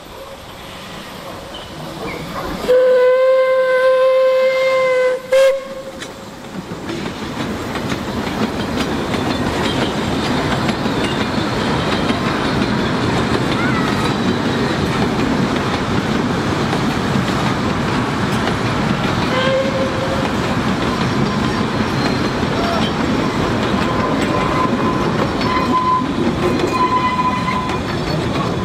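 Puffing Billy narrow-gauge steam train: the locomotive's whistle blows one long blast and then a short toot, and the train then passes, running loudly and steadily as the locomotive and carriages go by, with a brief whistle toot about two-thirds of the way through.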